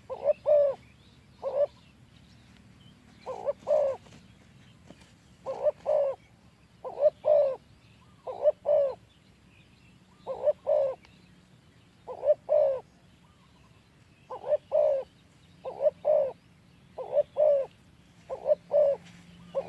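Spotted dove cooing: short, deep coo notes in groups of two or three, repeated every second or two.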